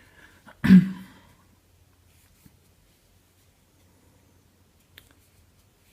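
A single short cough from a woman with something caught in her throat, about a second in, followed by quiet with a couple of faint ticks.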